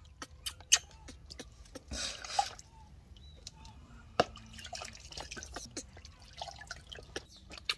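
Water dripping and splashing in a small plastic basin as a newborn baby monkey is washed by hand: scattered drips and small splashes, with a short burst of splashing about two seconds in.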